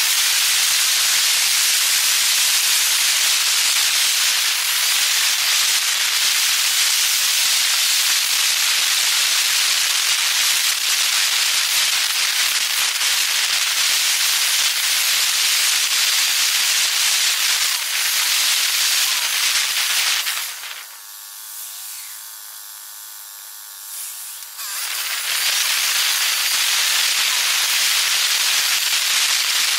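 Wind and road noise on the camera's microphone while moving along the road, played back at ten times speed so it becomes a steady, harsh high hiss. About two-thirds of the way through it falls much quieter for about four seconds, then comes back.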